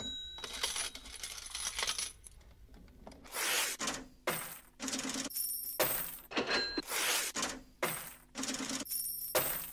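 Intro sound effect of bright metallic clinks and clatters with ringing high tones. There is a short lull about two seconds in, then the clatters repeat about twice a second.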